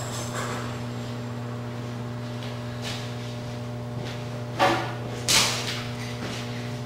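Steady low electrical hum, with two sharp clattering knocks less than a second apart about two-thirds of the way through.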